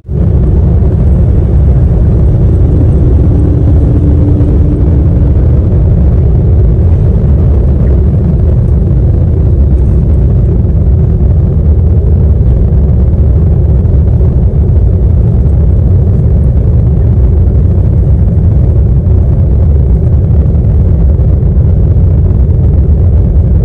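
Airliner's jet engines at takeoff thrust heard from inside the cabin during the takeoff roll and climb-out: a loud, steady low rumble that comes in suddenly and holds without letting up.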